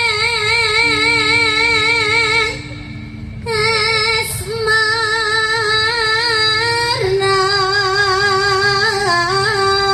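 A woman singing a Javanese song in long, held phrases with a wide, even vibrato, over a quiet steady accompaniment tone. She breaks off briefly about three seconds in, then carries on, sliding between notes near the end.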